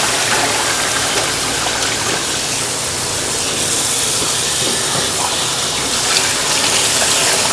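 Tap water running into a steel pot of lamb bones and ribs and spilling over the rim into a stainless steel sink, a steady rushing as gloved hands turn the meat. The bones are being rinsed to flush out leftover meat scraps.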